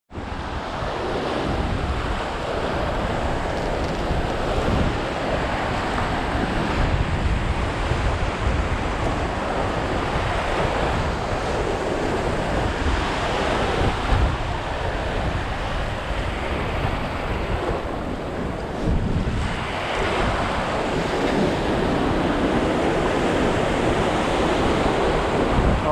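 Ocean surf breaking and washing up a sandy beach, swelling and easing as each wave comes in, with wind buffeting the microphone.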